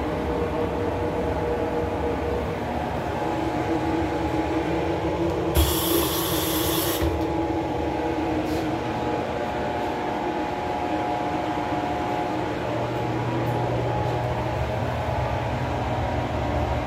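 Steady low mechanical hum with several tones, with a short burst of hiss lasting about a second and a half, starting with a thump about six seconds in.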